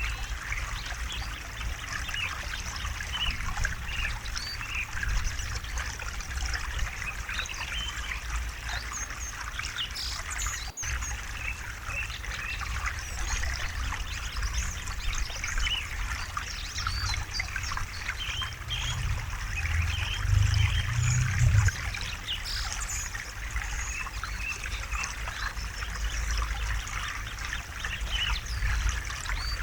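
River water trickling and babbling steadily, with birds chirping now and then. A low rumble swells for a few seconds about two-thirds of the way through. The sound cuts out for an instant about eleven seconds in.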